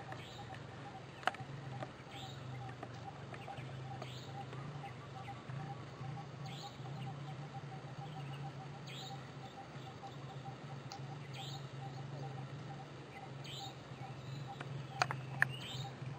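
Birds chirping outdoors, short falling calls repeating every second or two over a steady low hum, with a couple of sharp clicks about a second in and near the end.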